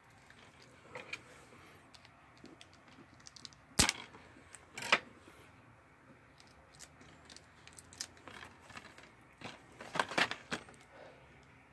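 Hard plastic clicking and scraping as a plastic security strip is worked off the edge of a DVD case. There are scattered sharp clicks: the loudest about four seconds in, another about a second later, and a quick cluster near the end.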